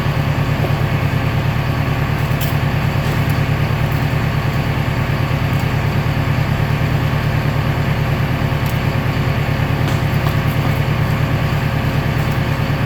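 Recycling baler machinery running with a steady, loud low hum and a fast even pulse, with a few faint clicks over it.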